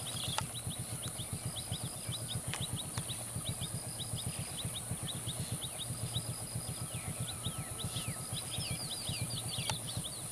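Birds chirping in quick repeated series of short rising notes, over the low, evenly pulsing hum of a vehicle engine idling. A steady high whine runs underneath.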